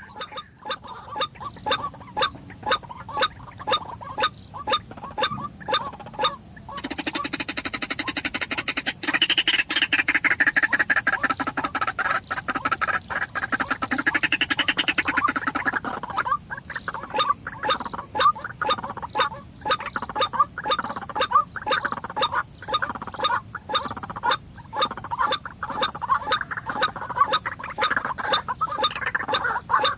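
White-breasted waterhen (ruak-ruak) calling: a long run of quick, harsh croaking notes, with a louder, denser stretch of rising-and-falling calls from about seven to sixteen seconds in.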